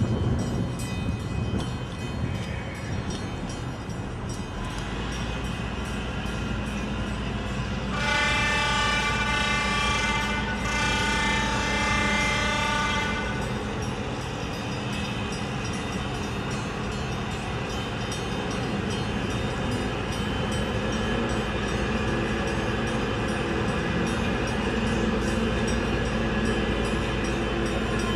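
Tugboat's diesel engines drone steadily as it pushes a grain barge. About eight seconds in, the tug's horn sounds two long blasts back to back, the second a little longer.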